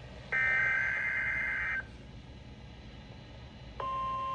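EAS SAME header data burst: a buzzing, warbling digital screech lasting about a second and a half, one of the repeated header bursts that open an emergency alert. About two seconds later, near the end, a steady single-pitch alert tone begins.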